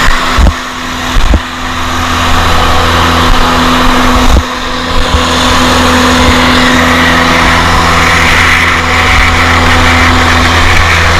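Finn bark blower running steadily while blowing mulch, a loud steady engine hum with rushing hiss over it. A few sharp knocks sound in the first second and a half and again about four and a half seconds in.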